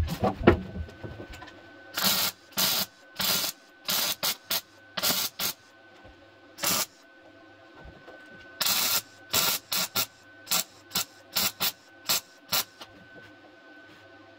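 MIG welder stitch-welding the thin sheet-steel rear inner wheel arch of a 1976 BMW E21 body: about twenty short crackling bursts of arc, each under half a second, in two runs with a pause in the middle. A brief clatter right at the start.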